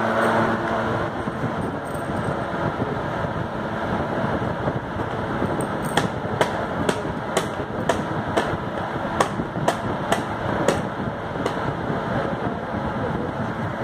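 A baby slapping the top of a small toy drum with an open hand, a run of sharp taps about two a second that starts about six seconds in and dies out near the end, over steady background noise.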